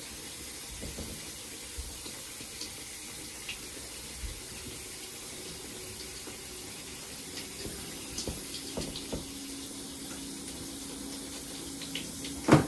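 Water running from a handheld shower sprayer held against a wet dog's fur in a grooming tub: a steady hiss of spray with faint scattered ticks of water. A single sharp knock near the end.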